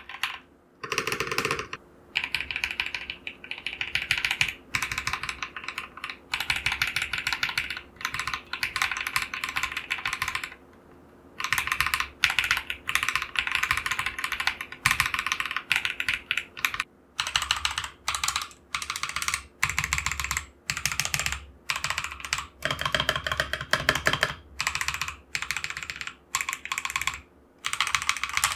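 Typing on a mechanical keyboard fitted with Akko Vintage White light linear switches. Fast runs of keystrokes are broken by short pauses.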